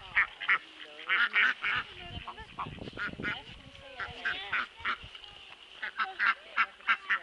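Domestic ducks quacking in quick runs of short calls, with pauses between the runs.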